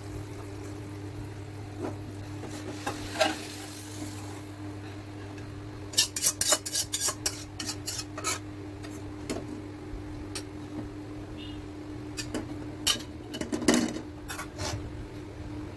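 A metal spoon scraping and clinking against a metal karahi as fish curry is spooned out into a steel bowl. The clinks come in two runs, from about six seconds in and again near the end, over a steady low hum, with a faint sizzle in the first few seconds.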